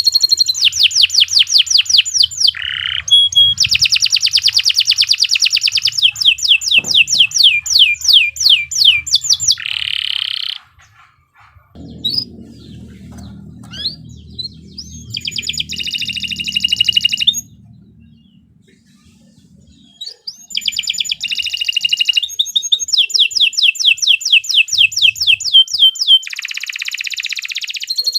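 Domestic canary singing long, shrill phrases of rapid, evenly repeated trill notes, broken by short pauses about ten and eighteen seconds in.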